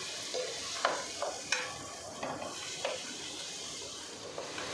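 Onion, tomato and spice mixture sizzling in a nonstick wok as a wooden spatula stirs it. A steady frying hiss runs under a few short scrapes of the spatula against the pan.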